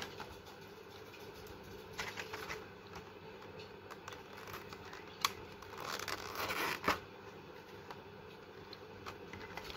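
Faint crinkling and rustling of a plastic packet and clear plastic tray of false nail tips being handled, in short spells, with a sharp click about five seconds in and another near seven.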